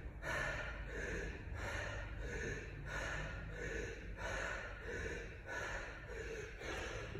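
A man breathing hard and fast, heavy panting from exertion, about one and a half breaths a second.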